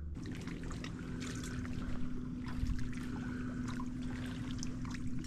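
Water trickling and lapping against a small fishing boat, with many small splashy ticks, over a steady low electric hum.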